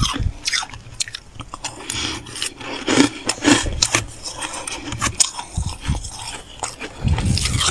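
Freezer frost being chewed: irregular crisp crunches in quick succession. A low rumble comes in near the end.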